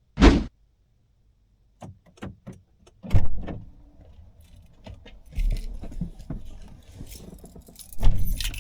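Keys jangling and a few clicks, a loud thump about three seconds in like a car door shutting, then a car's low engine rumble from about halfway with more small rattles.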